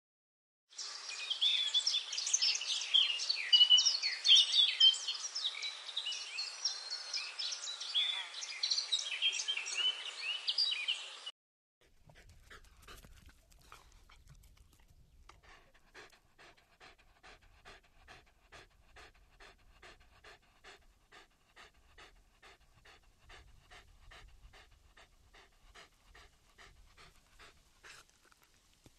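A loud, dense run of short high-pitched squeaks and chirps for about the first ten seconds, which stops abruptly. Then a dog panting quickly and evenly, much quieter.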